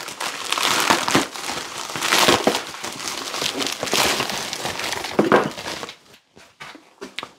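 Packaging wrap crinkling and crackling as it is cut open with a knife and pulled apart. It dies down about six seconds in, leaving a few faint clicks.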